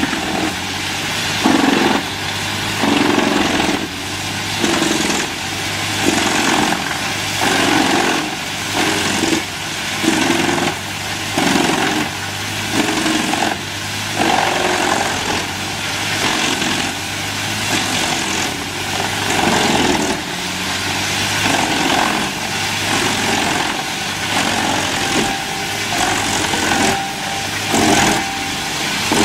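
Large engine-driven wood chipper running steadily, with louder surges recurring about once a second.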